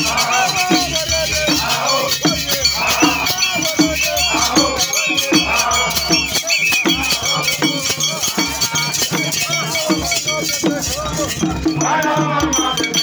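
Group of football supporters singing a chant together over hand drums beaten with sticks and the jangle of metal jingles, in a steady driving rhythm.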